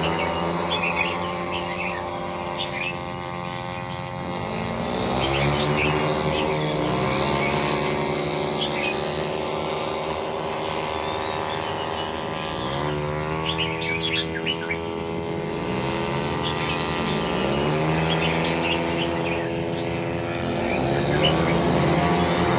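Racing engines accelerating, several times over: each time the pitch rises and then holds steady as another vehicle passes. Birds chirp throughout.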